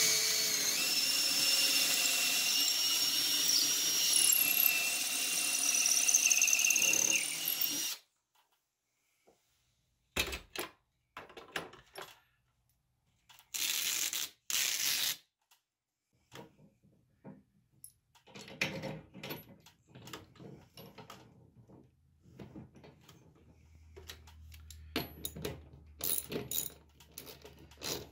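Cordless drill running continuously for about eight seconds with a whine that wavers in pitch, working the holes along a steel barn-door rail, followed a few seconds later by two short bursts. After that come scattered clicks and rattles of the mounting hardware being handled and a bolt being turned by hand with a socket driver.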